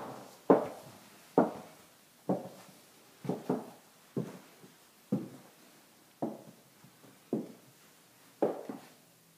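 Footsteps on a bare, unfinished floor, about one step a second, each step ringing briefly in the empty rooms.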